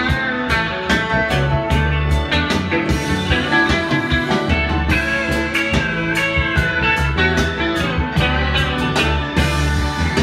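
A rock song with guitar and drums played back through a Dynaco ST-35 stereo tube amplifier over speakers.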